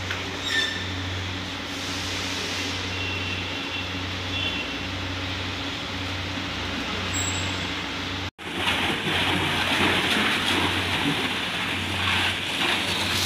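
A steady low machine hum for the first eight seconds or so. After a sudden cut, a pressure-washer water jet sprays onto the car body with a loud, even hiss.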